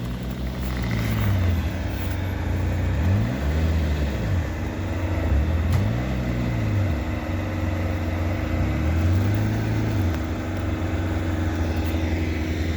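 Off-road utility vehicle's engine revving up and falling back several times, its pitch rising and dropping in repeated swells, while the vehicle is stuck on a muddy trail with its winch line broken.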